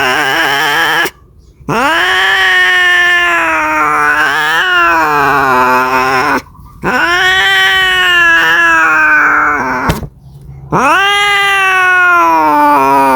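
Domestic cat caterwauling: the end of one drawn-out yowl, then three more long yowls of several seconds each, every one rising and then sliding down in pitch, with short pauses between, the last still going at the end. A cat's mating call.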